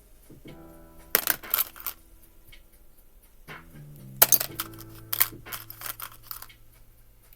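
Small 3D puzzle pieces clicking and clinking as they are handled and fitted together, about five sharp clicks in a few clusters. Soft background music with held notes plays underneath.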